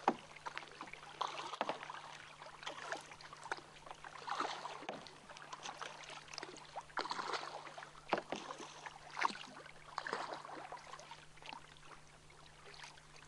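Kayak paddle blades dipping and pulling through the water in irregular strokes, with splashing, bubbling and dripping. A faint steady hum runs underneath.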